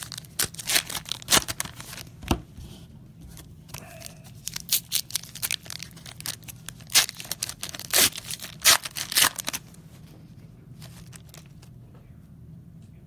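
Plastic trading card pack wrapper being torn open and crinkled by hand: a quick run of sharp rips and crackles that stops about two-thirds of the way through.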